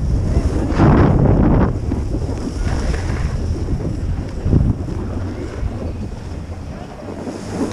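Wind rushing over the microphone of a camera moving down a ski slope, mixed with the hiss of sliding over packed snow. It swells louder a few times, about a second, three seconds and four and a half seconds in, then eases as the rider slows.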